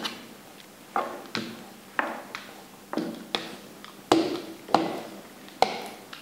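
Dough roller knocking against a stoneware baking stone while thin dough is rolled out: a series of sharp taps, about one or two a second, some in pairs, each with a short ring.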